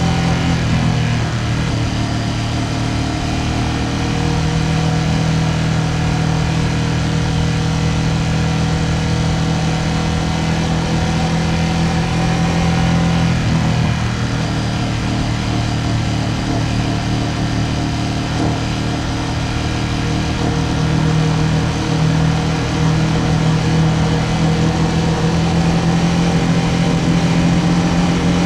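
Ducati Panigale V2S's twin-cylinder engine running at a fairly steady road speed, its note dipping briefly about halfway through and rising a little near the end.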